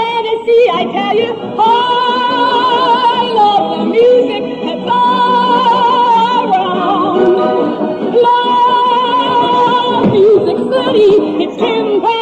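A woman singing long held notes with vibrato, breaking quickly between pitches in places, in a live stage-musical recording with its accompaniment.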